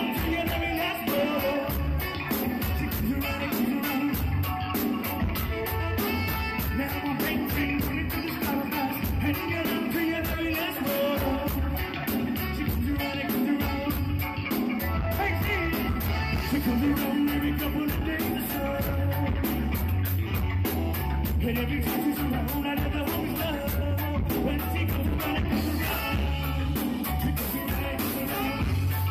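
Live band playing a song: drum kit, electric guitar, keyboard and saxophone, with a lead singer.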